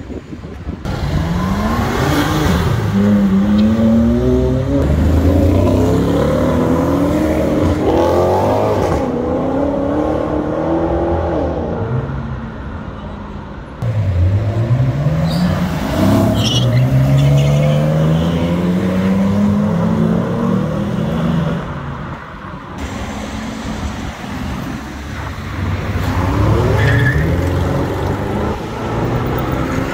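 Performance cars accelerating hard with loud exhausts, the engine note climbing in pitch through the gears in several separate pulls, with abrupt changes between short edited clips.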